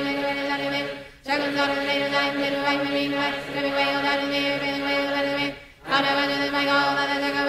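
Voices rapidly chanting a decree in unison on a near-monotone pitch. They break off briefly twice, a little over a second in and again near the end.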